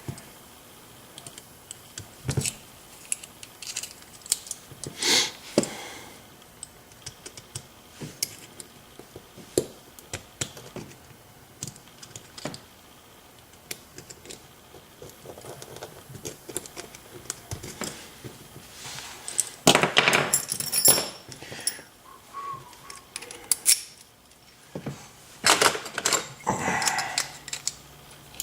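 Small metal lock parts and tools clicking and clinking as a ScanLock SLX-5 lock cylinder is taken apart by hand, with its wire retaining clip being worked off. The clicks are scattered throughout, with louder bursts of metallic rattling about five seconds in, around twenty seconds in, and again near the end.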